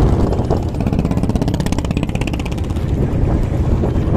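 Engine of a wooden river trawler running steadily under way, with a fast, even beat.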